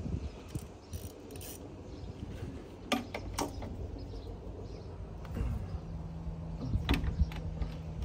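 A metal wrench clinks and scrapes against the oil drain plug under a Kawasaki Bayou ATV's engine as the plug is snugged up, with a few sharp clinks about three seconds in and again near the end. A faint steady low hum comes in about halfway.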